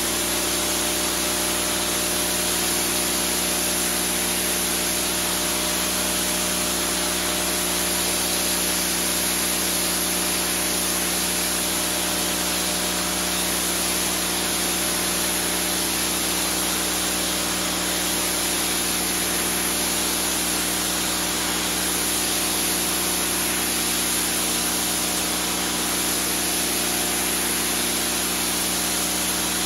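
Pressure washer jet spraying onto a soaked rug: a steady hiss of water spray over an even hum from the machine, unchanging throughout.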